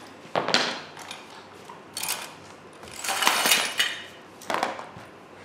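A hammer and a plastic bag of small metal flat-pack fittings clinking and rattling as they are set down on the floor, in about four short bursts, the longest about three seconds in.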